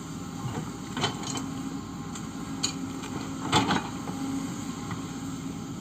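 Kobelco SK130 excavator's diesel engine running steadily, with several sharp knocks and clanks. The loudest is a cluster about three and a half seconds in.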